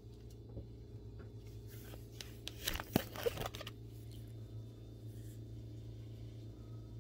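Plastic trading-card pages rustling and crinkling as they are handled, for about a second and a half near the middle, with a few sharp clicks, over a low steady hum.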